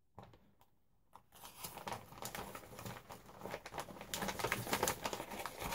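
Craft paper scraps rustling and crinkling as they are handled and sorted by hand: a couple of small rustles, then steady crinkling from about a second and a half in, loudest near the end.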